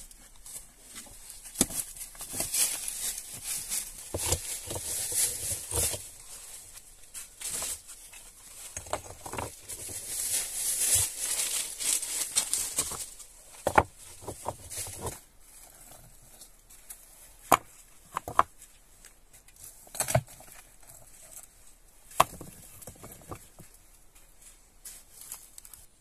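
Dry fallen leaves crunching and rustling under someone crawling and moving about on a rocky cave floor, in two longer bursts. In the second half come several sharp single knocks of stone on stone.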